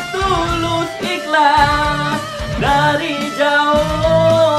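A man singing a Malay Raya song in a heavy-metal cover arrangement over a band backing track, holding long sung notes.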